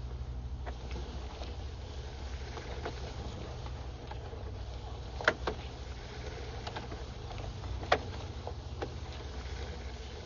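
Sewer-scope camera rig being pushed down a sewer line: a steady low hum with scattered sharp clicks, two of them louder, about five and eight seconds in.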